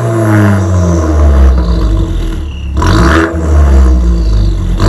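Opel Astra GTC's 1.4 turbo four-cylinder free-revving while parked, heard at the tailpipe of an exhaust with its factory rear muffler and resonator removed, leaving only a Helmholtz resonator and the stock tip. The revs fall away, are blipped up sharply again about three seconds in and fall once more, with another blip right at the end.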